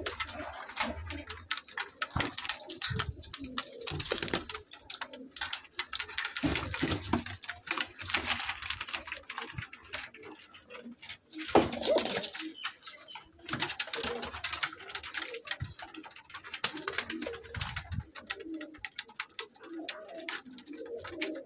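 A flock of domestic pigeons cooing together in a loft, with a steady run of short clicks and rustling scuffles from the birds' feet and wings.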